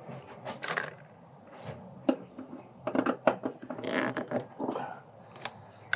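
Hand tools and small metal parts clinking and rattling: an irregular series of sharp clicks and knocks.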